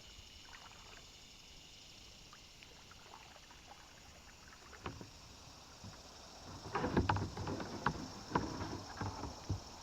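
Kayak paddling: water splashing and the paddle knocking against the kayak, a quick run of knocks and splashes about seven to nine and a half seconds in after a single knock near five seconds, over a steady high insect drone.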